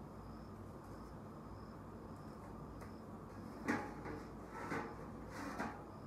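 Eggs and egg trays being handled: three sharp knocks and clatters in the second half, the first the loudest, as an egg tray is set down on a stack and eggs are placed into it. A cricket chirps faintly and steadily about twice a second throughout.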